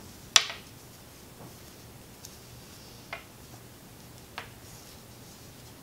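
Wooden knitting needles clicking against each other while purling a row: a few sharp ticks spaced about a second apart, the first the loudest, over a faint low hum.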